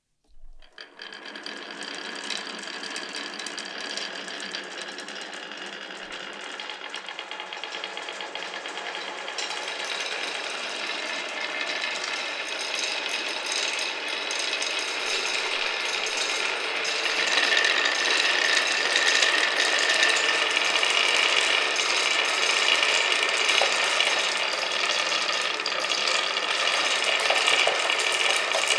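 Many glass marbles rolling and clattering down a wooden marble run, a dense continuous rattle with a light ringing. It starts suddenly about half a second in and grows louder, loudest in the second half.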